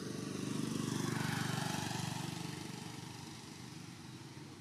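A motor vehicle passing on a road. Its engine hum and tyre noise swell to a peak about a second in, then fade away.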